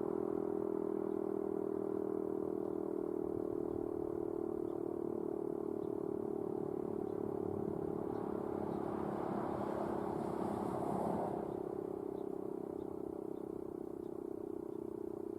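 Sentry 5V rotating outdoor warning siren sounding a steady tone during its monthly test. A louder rush of noise rises over it about nine seconds in and cuts off about two seconds later.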